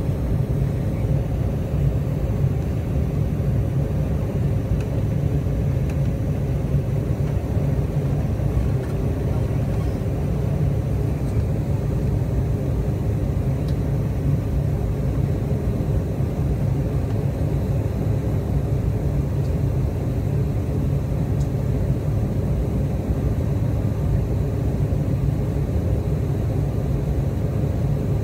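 Steady low rumble of an airliner's jet engines and rushing air, heard inside the passenger cabin during the climb after takeoff.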